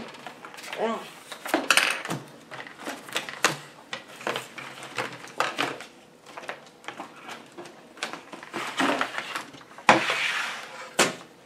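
Hard plastic tablet cases, stands and packaging handled on a table: many small clicks, taps and knocks, with a louder scraping rustle near the end.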